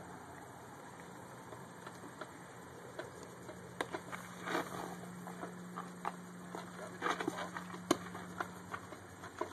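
Shoes scuffing and stepping on a dirt pitcher's mound during a pitching delivery and the walk back. There are scattered light clicks and scrapes, a brief scrape about halfway through, and a sharper cluster of steps near the end, all over a faint steady low hum.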